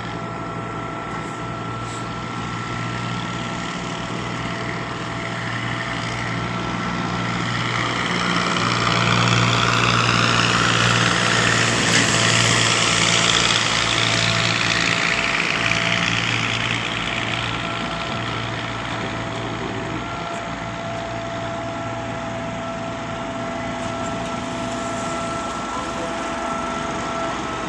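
Concrete pump truck's diesel engine running steadily, with a steady high whine over the engine hum. The noise swells louder for several seconds in the middle, then eases back.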